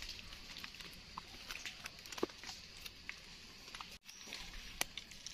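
Faint scattered ticks and rustles of dry leaf litter being disturbed close by, over a steady high hiss.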